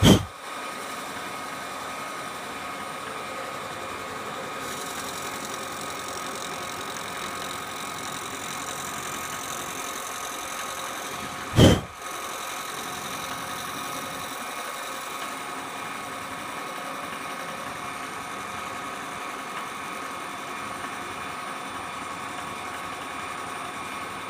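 Milling machine running steadily with its end mill spinning, a constant motor-and-drive hum with a steady whine, while it finishes a light relief cut. Two short, sharp knocks stand out, one at the start and one about twelve seconds in.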